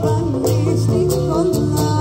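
A live Greek-Cypriot band playing, with a wavering melody line over plucked strings and a steady beat.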